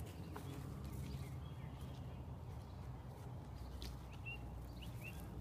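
Walking outdoors with the dogs: a steady low rumble with scattered faint clicks of steps, and a small bird chirping several times in the second half.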